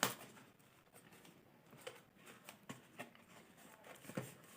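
Faint handling sounds of a delivered parcel being held and turned: a few scattered soft clicks and taps over quiet room tone.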